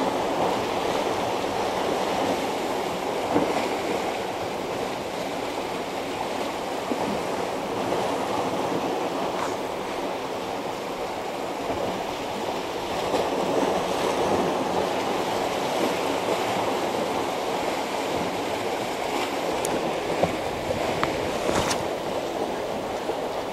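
Sea waves washing against the breakwater's tetrapods and rocks, a steady rushing that swells and eases. A few short clicks come through it, one a few seconds in and a couple near the end.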